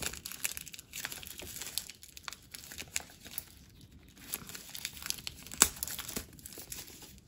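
Clear cellophane shrink wrap crinkling and tearing as it is peeled off a boxed card deck by hand, in irregular crackles, with one sharper, louder crackle about two-thirds of the way in.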